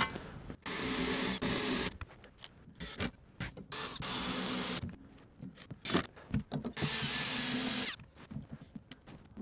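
Makita 18-volt cordless drill running in three short bursts of about a second each, with small knocks between, as it works screw holes into the skate box's square edge coping.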